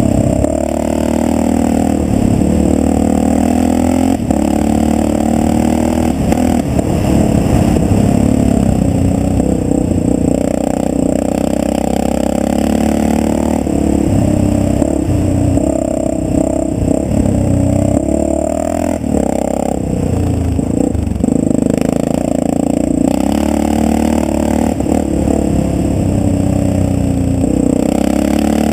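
Yamaha XT600's single-cylinder four-stroke engine running hard under way, its revs rising and falling with the throttle, heard close from the rider's helmet. Short clattering knocks come through as the bike rattles over the gravel track.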